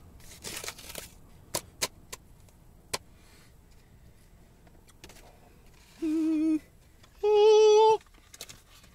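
A man's voice humming "mmm" twice with his mouth full, in enjoyment of the food: a short lower hum about six seconds in, then a louder, higher one. Before that there are a few faint clicks and rustles.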